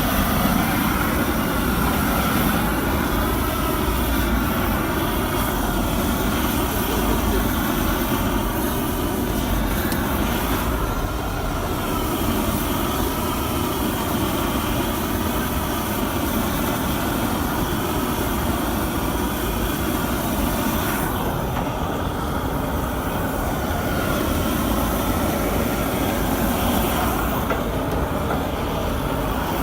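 A motor vehicle running steadily: a continuous low rumble with a faint wavering whine over it.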